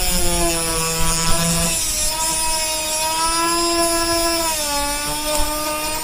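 Dremel rotary tool with a thin cutoff disc cutting the heads off rusted screws: a steady high motor whine whose pitch sags and recovers as the disc is pressed into the metal, dipping lower about four and a half seconds in.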